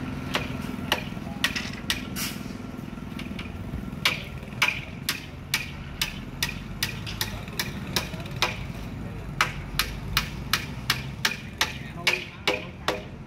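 A dump truck's diesel engine running low and steady as the truck pulls away, under a run of sharp, hammer-like knocks that come about twice a second from about four seconds in.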